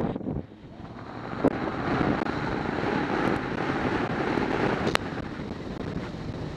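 Wind rushing over the microphone of a camera on a moving sport motorcycle, with the bike's running engine beneath it. The noise dips briefly just after the start, then builds and holds steady, with a couple of sharp clicks along the way.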